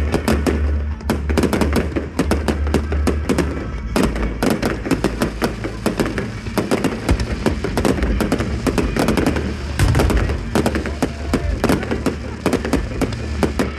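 Fireworks display: a dense, rapid barrage of bangs and crackles with barely a gap.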